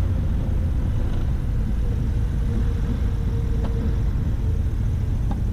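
Cabin noise of a twin-engine Cessna 310 rolling along the runway: its engines and airframe make a steady low rumble, with a faint steady hum over it for the first few seconds.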